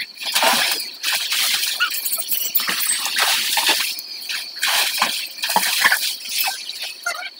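Water splashing and sloshing in a swimming pool as swimmers move through it, in uneven surges.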